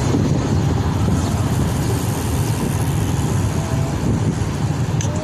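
Steady low rumble of city street noise with traffic.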